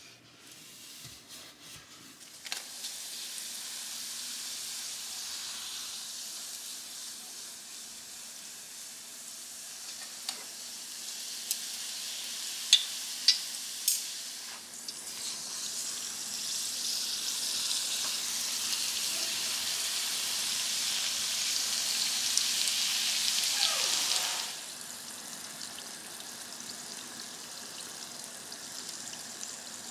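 Yeast donut dough deep-frying in hot oil in a pot: a steady sizzle that starts a couple of seconds in, with a few sharp clicks near the middle. It is loudest past the middle, then drops suddenly to a quieter sizzle about three-quarters of the way through.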